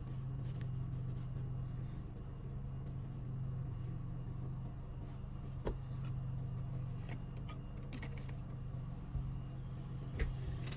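A steady low hum throughout, with a few faint sharp clicks of small clipper parts being handled as the locking latch is pulled off its springs.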